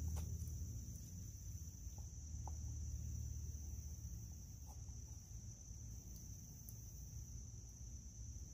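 Insects trilling steadily at a high pitch, with a low rumble underneath and a few faint taps.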